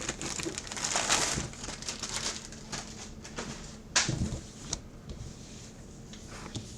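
Rustling and crinkling of plastic packaging as a jersey is handled, strongest in the first two seconds, with a sharp click about four seconds in and softer handling after.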